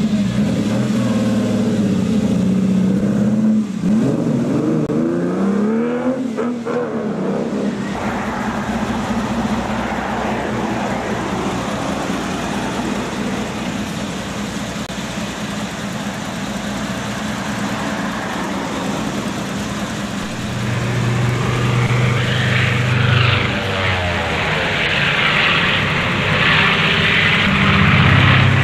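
Motor vehicle traffic: engines running, their pitch sliding up and down in the first few seconds, then a steady rushing noise, with a louder, deeper engine sound building about two-thirds of the way through.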